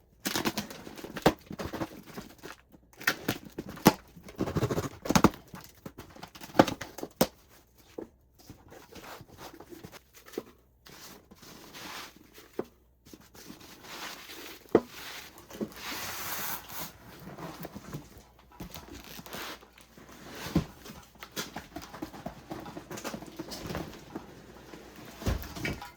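A package of fireworks being unpacked by hand: cardboard and wrapping rustling and tearing, with irregular sharp knocks as boxes and items are handled and set down.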